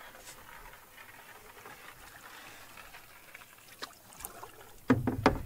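Canoe being paddled quietly: faint trickling of water off the paddle and along the hull. A couple of faint clicks come about four seconds in, then a louder knocking about five seconds in.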